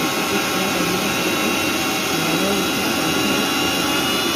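Electric mixer grinder running steadily, its steel jar blending mayonnaise.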